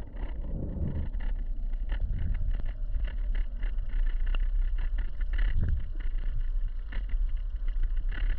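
River current heard underwater: a steady, muffled low rumble of moving water with many faint clicks and ticks scattered through it.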